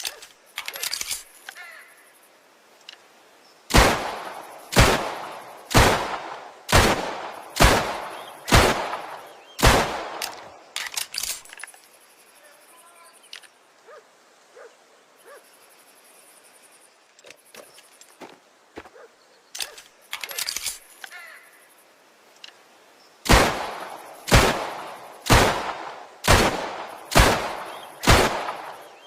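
Shots from a 1911 pistol, fired in two strings of about seven shots, each roughly a second apart and each with a short ringing tail. Between the strings come a few fainter pops and clicks.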